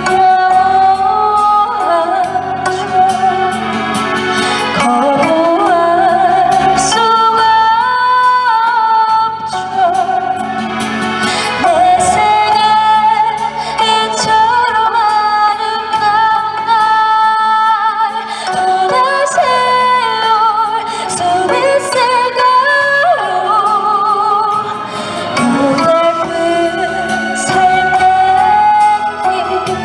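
A woman singing a held, wavering melody with vibrato over instrumental accompaniment.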